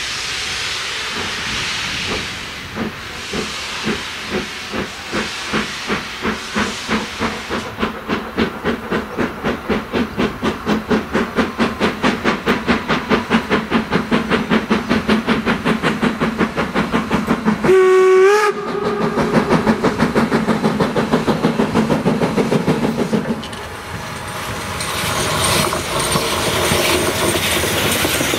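Steam locomotive No 34 working a train, its cylinder drain cocks hissing at first, then its exhaust chuffs quickening as it picks up speed toward the listener. About two-thirds of the way through comes one short whistle blast. As the engine passes, the chuffing gives way to the rolling and clatter of the coaches.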